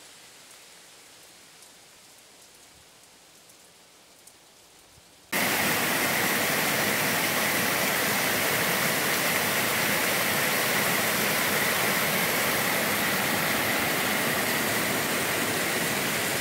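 Faint, steady hiss for about five seconds, then a sudden cut to the loud, steady rush of water pouring over a reservoir dam's spillway.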